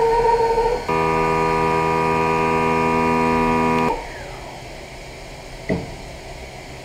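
CNC mill-turn machine cutting a steel crankshaft: a loud, steady, buzzing whine from the cut that shifts to a lower pitch about a second in and stops abruptly about four seconds in, followed by a short falling whine and quieter machine noise, with one sharp click near the end.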